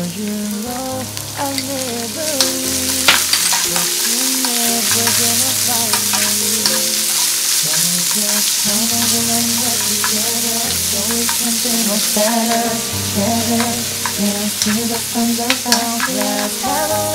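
Onion, carrot and cocktail shrimp sizzling in oil in a nonstick frying pan as they are stir-fried with a wooden spatula, which scrapes and taps against the pan now and then.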